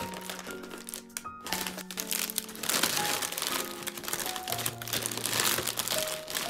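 Plastic snack packets crinkling and rustling as they are handled, over background music playing a melody.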